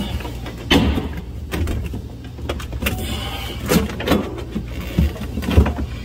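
Plastic inner cover panel of a Samsung refrigerator being pressed into place, its clips snapping in: a handful of separate knocks and clicks over a steady low hum.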